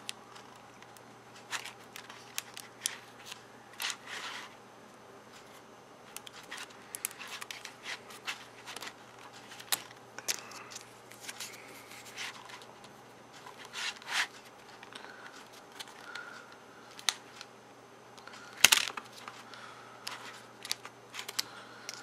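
Scattered small clicks, taps and rustles of fingers working a keyboard ribbon cable into its connector on a Dell Latitude D430 laptop, with a sharper knock about 19 seconds in. It is a fiddly, repeated fitting attempt.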